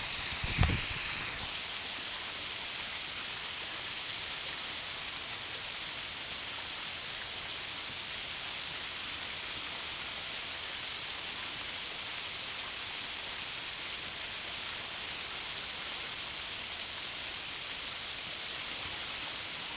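Small waterfall pouring over a rock ledge into a shallow pool: a steady hiss of falling and splashing water. A single brief knock about half a second in.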